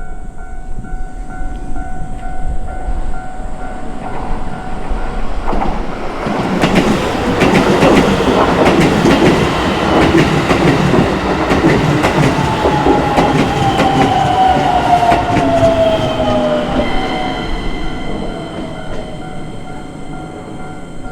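Level-crossing warning bell ringing, then a Keisei Chiba Line electric train passes over the crossing, its wheels clattering over the rail joints. A falling whine comes from the train about halfway through, and the bell tones ring on as the train noise fades.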